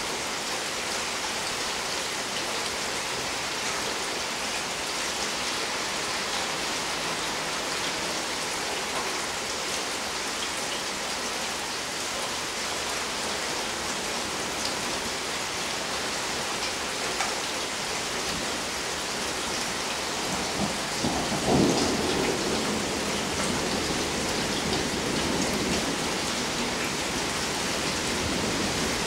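Steady rain falling. About two-thirds of the way through, a rumble of thunder breaks, peaks briefly and keeps rolling.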